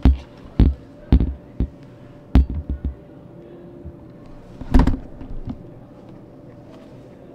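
Irregular knocks and thumps of hands handling and bumping the recording device, about a dozen in the first six seconds, over a faint steady hum.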